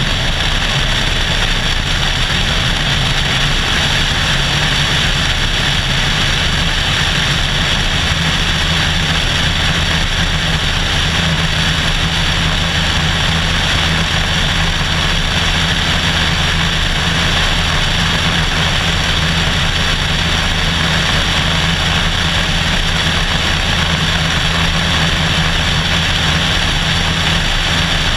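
Cessna 172SP's four-cylinder Lycoming engine and propeller running steadily at full takeoff power through the takeoff roll, lift-off and climb, heard from a camera mounted outside under the fuselage with heavy wind rush over it.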